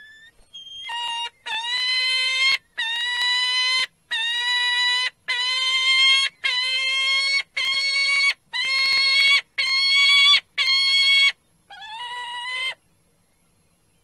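Adult peregrine falcon giving a series of about ten loud, drawn-out calls, roughly one a second, each holding a nearly even pitch; the calls stop shortly before the end.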